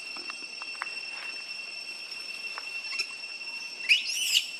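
Steady high insect drone with a few faint ticks. Near the end comes one short, high call that rises and falls.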